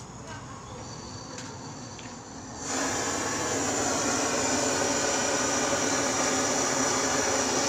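A few small clicks, then about two and a half seconds in a butane canister torch lights and its flame hisses loudly and steadily, heating a copper accumulator toward red heat for soldering.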